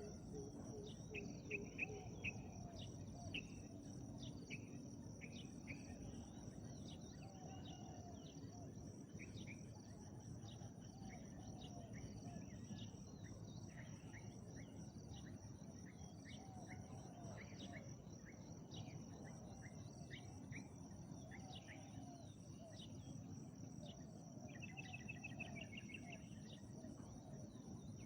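Steady high trilling of crickets and other insects, with small birds chirping. Faint low cooing of spotted doves recurs every few seconds.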